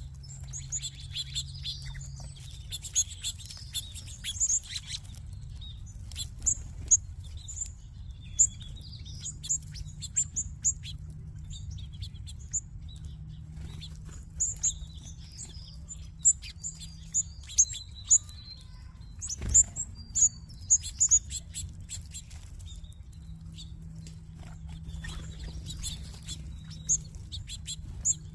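A flock of small seed-eating birds (finches, sparrows and munias) chirping and twittering in many short, high notes, busiest in the first few seconds, with wing flutters and a sharp click about two-thirds of the way through.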